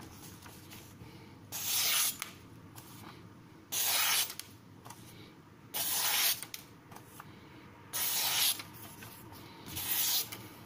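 Freshly sharpened Tojiro Shirogami carbon-steel nakiri slicing through magazine paper held in the air: five short papery swishes about two seconds apart, each lasting about half a second. This is a sharpness test of an edge finished on a 6000 grit stone.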